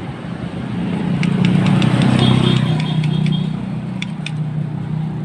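Engine degreaser being sprayed onto a motorcycle's side-stand spring: a hiss of spray, loudest about two seconds in, over a steady low engine hum, with a few light clicks.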